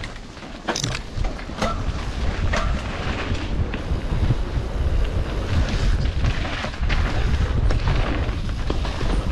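Mountain bike ridden fast down a dirt forest trail: wind buffets the microphone over a steady low rumble of tyres on dirt, with scattered short clattering knocks from the bike over bumps.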